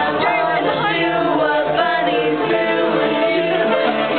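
A small group of young men and women singing together, several voices at once.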